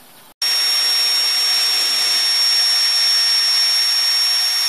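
Cordless drill running at steady full speed, drilling into a wooden board: a loud, even high whine that starts abruptly about a third of a second in.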